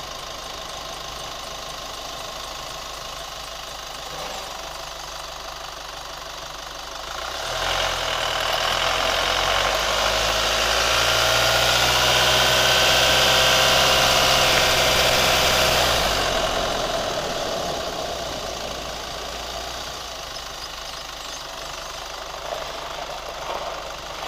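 Chevy Colorado pickup's engine idling steadily. From about seven seconds in, a louder steady whir with a broad hiss swells up, holds, and fades away again by about seventeen seconds.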